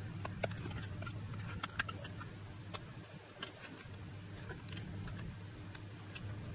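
Faint, irregular small clicks and ticks of metal tweezers prying at and tapping the cable connectors of a MacBook Pro logic board, over a low steady hum.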